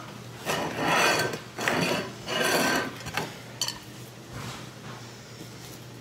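Square ceramic plate scraping across a granite countertop as it is slid and turned: three rasping scrapes in the first three seconds, then a few light clicks and softer handling.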